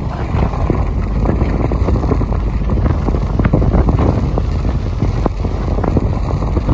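Car driving on an unsealed dirt and gravel road: a steady loud rumble of tyre and road noise, with many small crackles of stones under the tyres, and wind buffeting the microphone.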